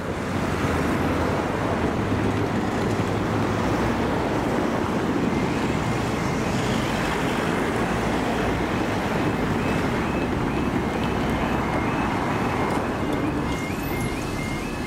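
Steady, loud vehicle rumble. About five seconds in, a level crossing's audible alarm starts and sounds a repeating two-tone warning over it.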